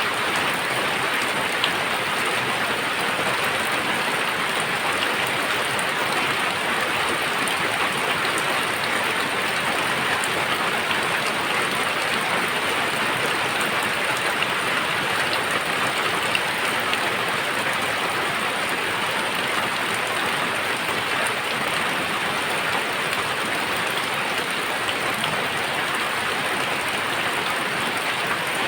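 Very heavy rain falling steadily, an even, unbroken wash of raindrops on surfaces.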